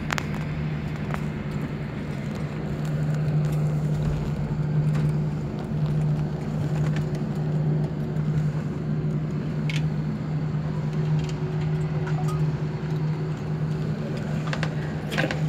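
Airliner cabin noise: the jet engines and cabin air system humming steadily with a low drone, as the plane taxis after landing.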